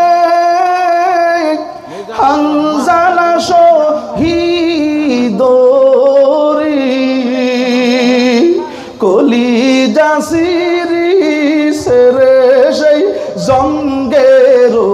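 A man singing a Bengali Islamic devotional song (gazal) unaccompanied, in several long phrases of drawn-out, wavering notes with short breaks between them.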